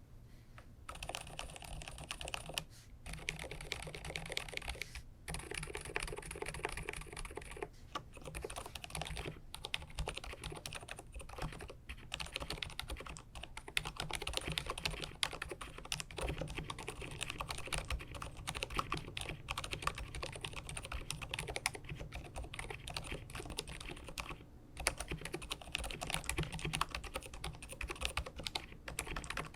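Steady typing on an mStone Groove T Purpler mechanical keyboard with hand-lubricated silent 45 g Milky switches and silicone and felt dampening inside: soft, muted key presses in a continuous run, broken by a few short pauses.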